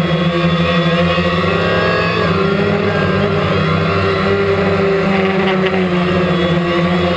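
DJI Phantom quadcopter's electric motors and propellers whirring steadily in flight, with a slight shift in pitch about two seconds in as it manoeuvres.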